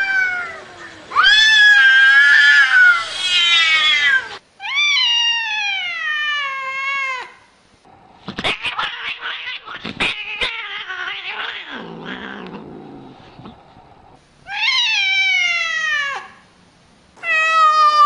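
Cats yowling in a face-off: long, wavering yowls, then a long call falling in pitch. About halfway through there is a noisy stretch of scuffling and knocks, followed by another long falling meow and a steady drawn-out meow near the end.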